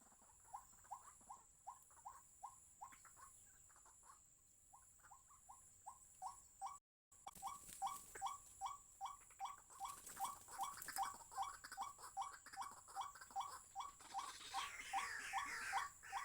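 White-breasted waterhen calling: a long, even series of short rising notes, about three a second, broken by two short pauses. A higher chattering joins near the end.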